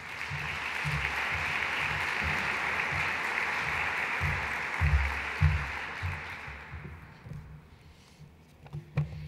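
Audience applauding, dying away over the last few seconds, with low dull thuds underneath and a single sharp knock near the end.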